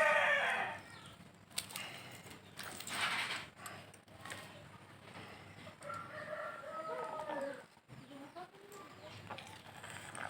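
A rooster's crow trailing off at the start, then scattered clicks and rustles, and a second, fainter crow about six seconds in.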